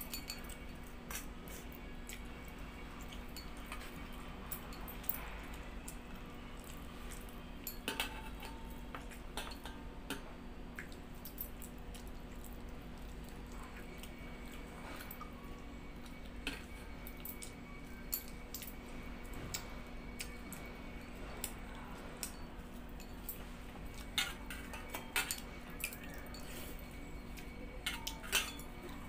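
Bangles clinking and fingers knocking against a steel bowl of water-soaked rice during eating by hand: scattered small clicks and jingles, thicker in a quick cluster near the end, over a steady low hum.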